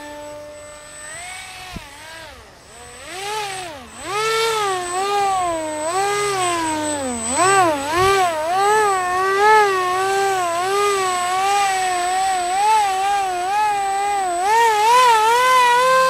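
Small RC plane's motor and propeller whining, its pitch rising and falling constantly with the throttle. The pitch dips sharply twice, about four seconds in and again near halfway, and climbs again near the end.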